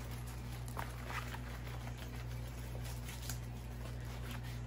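Faint rustling and small crinkles of a diamond painting kit's plastic packaging being handled, over a steady low hum.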